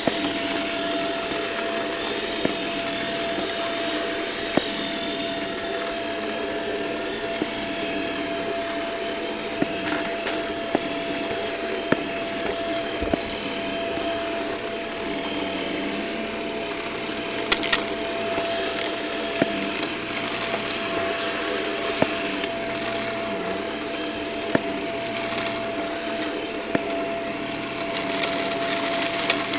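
Vacuum cleaner running steadily with a constant whine, picking up a crunchy mess, with scattered sharp clicks and crackles as bits of debris are sucked in.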